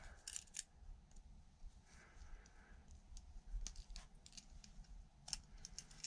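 Faint, scattered small clicks and light metal taps from a small keychain multitool being handled, its parts and bit holder worked with the fingers.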